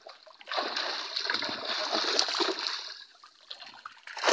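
Bhetki (Asian seabass) thrashing in a hauled net in shallow water, splashing hard from about half a second in to about three seconds, then dying down until a fresh burst of splashing near the end.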